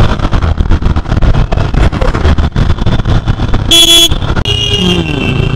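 Motorcycle riding noise in traffic: steady wind rumble on the rider's microphone over the engine. A vehicle horn honks once, briefly, about four seconds in.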